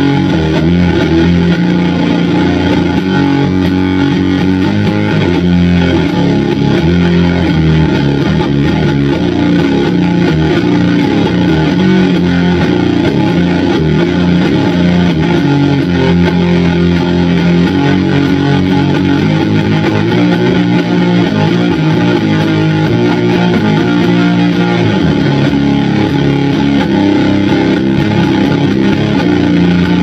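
Electric guitar played through a Doppelganger Effects Brazen Bull one-knob fuzz pedal with the guitar's volume knob full up, giving its most aggressive setting. Loud, continuous fuzzed riffing on held low notes.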